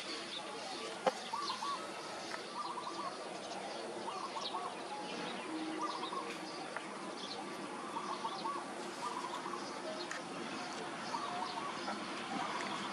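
Birds chirping and calling: short warbling phrases repeated every second or two, with scattered brief high chirps over a steady background hiss.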